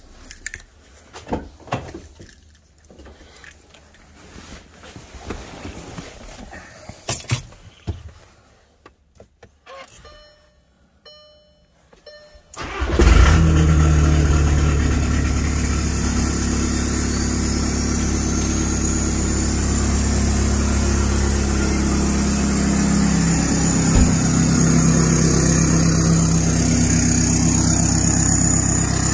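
Quiet handling noises, then about 13 seconds in the 2.0 common-rail TDI diesel of a VW Passat starts abruptly on its first start with a new 3.5-inch straight-pipe exhaust. It settles into a loud, steady diesel idle, with a faint high whine rising in pitch a few seconds after start.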